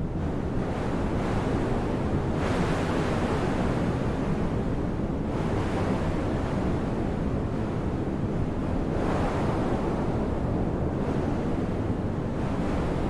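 Soft wind heard from indoors: a steady low rush with gusts that swell and fade every few seconds.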